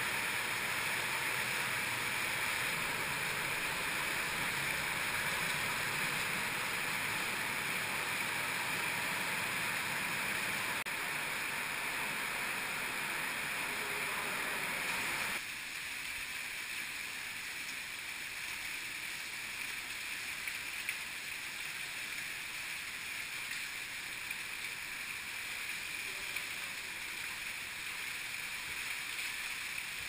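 Rushing water of an underground limestone cave stream, a steady hiss-like roar. About halfway through it drops suddenly to a quieter, thinner rush, with a few faint knocks later on.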